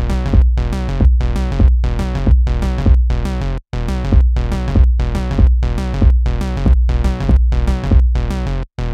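Background music with a steady beat and deep bass, cutting out for an instant twice.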